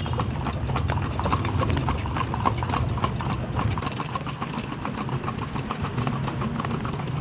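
Horse's hooves clip-clopping on an asphalt street as it pulls a kalesa, a horse-drawn carriage, in a quick, even beat. A low rumble lies underneath and eases about four seconds in.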